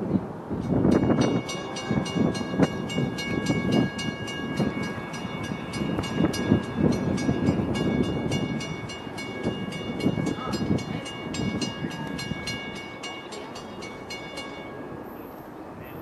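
A railroad grade-crossing bell rings rapidly, about three to four strikes a second, and stops near the end. Gusts of wind buffet the microphone underneath.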